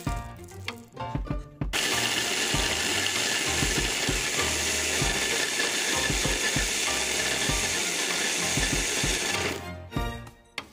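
Electric food chopper with a Braun chopper bowl, its blade grinding brown biscuits into fine crumbs. It is a loud, steady whirring-grinding noise that starts about two seconds in and stops near the end, with background music before and after.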